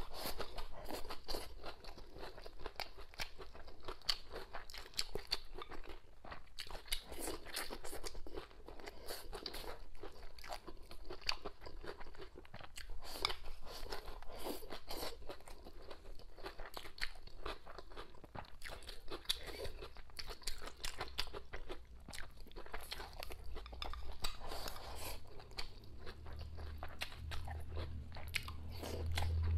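A person chewing and crunching food close to a clip-on microphone, with many crisp crunches in quick succession. A low hum swells in near the end.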